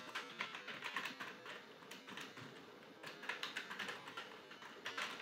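Typing on a computer keyboard: quick keystroke clicks in bursts, with a lull of about a second midway.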